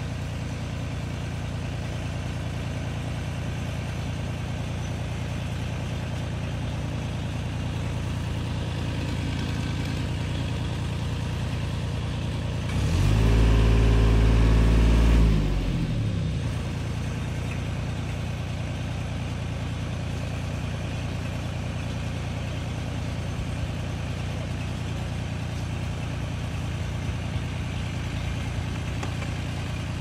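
Steady low engine hum. About halfway through, a vehicle passes close by for about three seconds, much louder, its engine pitch dropping as it goes away.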